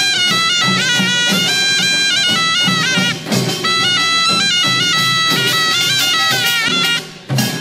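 Korean folk music: a loud reed wind instrument plays a stepped, ornamented melody over a steady drum beat, breaking off briefly about three seconds in and again near the end.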